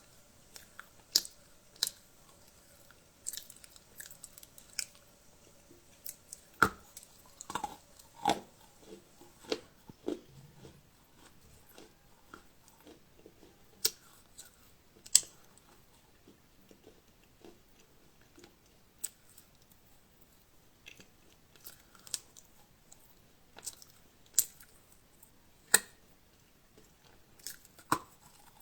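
Close-miked ASMR eating: chewing and biting with irregular sharp crunches and wet mouth clicks.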